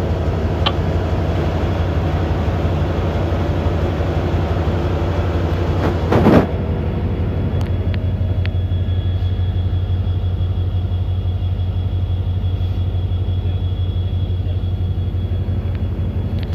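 A train running, heard from on board at an open window: a steady low rumble throughout. A brief, louder rush of noise comes about six seconds in.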